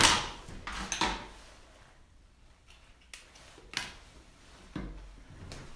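Objects being handled close to the microphone: a sharp click at the start, then a few separate knocks and bumps with quiet between them.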